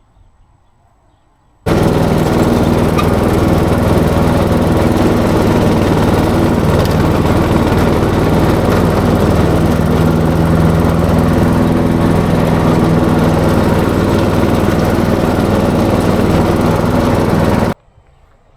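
Riding lawn mower engine running steadily at a constant speed. It cuts in suddenly about two seconds in and cuts off just as suddenly near the end, with no cranking or spin-down.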